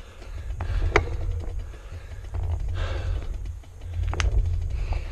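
A cyclist breathing hard, heavy panting breaths about every second and a half from the effort of a very steep climb, over a steady low rumble, with a couple of sharp clicks.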